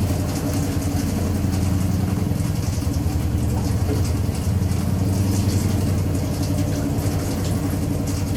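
Midea washing machine draining: a steady low hum, most likely from the drain pump emptying the tub.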